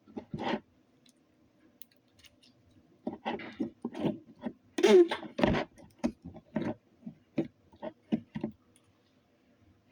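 Slime being squished and worked into a plastic container: irregular wet squelches and small pops in quick clusters, loudest about five seconds in.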